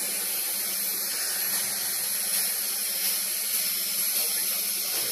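Dental suction tip drawing air from the patient's open mouth: a steady high hiss.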